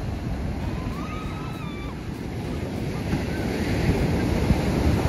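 Ocean surf breaking and washing up a sandy beach, with wind buffeting the microphone. The wave noise swells louder in the second half.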